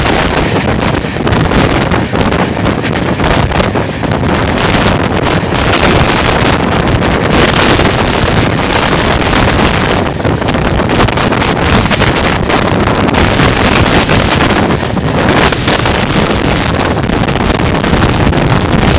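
Heavy wind buffeting the microphone held out of a moving passenger train's window, over the train's steady running noise on the track.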